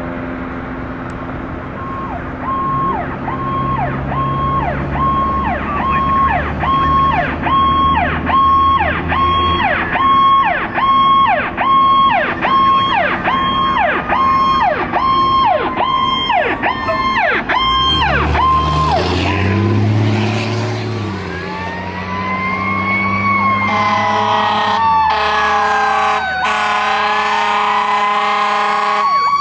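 Fire engines passing with sirens. First an electronic siren pulses quickly, about one and a half cycles a second. Then, after a low engine rumble, a mechanical siren winds up and slowly coasts down, joined by long air-horn blasts near the end.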